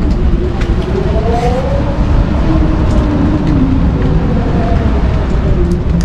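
Sailboat under way at sea: wind moaning through the rigging in several wavering tones that slowly rise and fall, over a loud steady rumble and hiss of water rushing past the hull, heard from inside the cabin.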